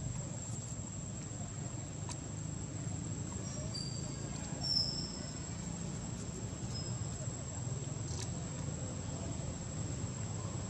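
A steady, high, thin insect drone over a low steady rumble. A few brief high chirps come between about three and a half and seven seconds in, the loudest near five seconds, with a couple of faint ticks.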